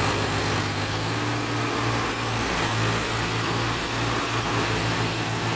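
Tractor diesel engines, an Eicher 5660 and a John Deere, working under load as they drag a loaded trailer through deep mud. A steady low engine drone that becomes a more pulsing chug in the second half.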